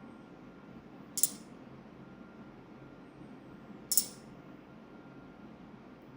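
Two short, bright metallic clinks with a brief ring, about three seconds apart.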